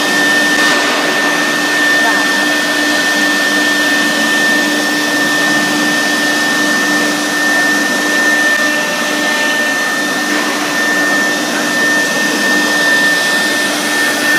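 CNC router with an HSD 6 kW air-cooled spindle running steadily as it cuts a wave pattern into a board: a constant high whine and a lower hum over a steady rushing noise.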